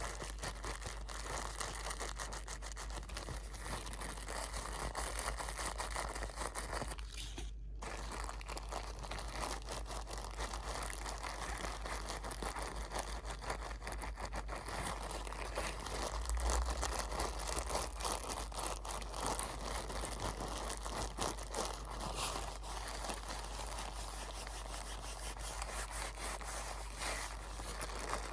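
Close-miked crinkling and crumpling of crinkly material, a continuous dense crackle of fine rustles and clicks.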